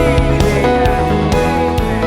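Background music with guitar, steady held notes and a regular beat.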